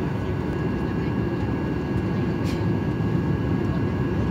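Boeing 737-800's CFM56-7B jet engines heard from inside the passenger cabin: a steady, heavy rumble with a faint steady whine above it. There is one brief tick about halfway through.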